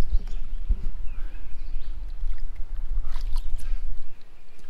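Shallow river water splashing as a hooked rainbow trout thrashes and is grabbed by hand, with a few sharp splashes over a low steady rumble.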